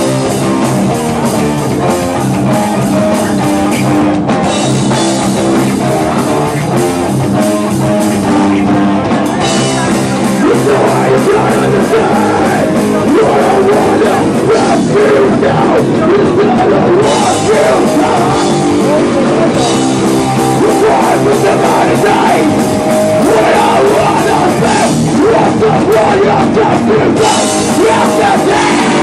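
A hardcore band playing live and loud, with a fast, steady drum kit under the guitars and no break in the music.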